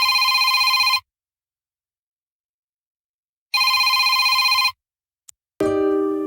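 Android Ice Cream Sandwich ringtone in the style of a classic telephone bell: a fluttering electronic trill rings twice, each ring about a second long, with a pause of about two and a half seconds between them. Near the end the next ringtone begins with plucked, guitar-like notes.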